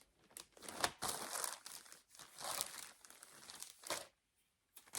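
Small plastic bags of pre-cut quilting fabric pieces rustling and crinkling in irregular bursts as they are rummaged through and handled, with a sharp tick a little under a second in.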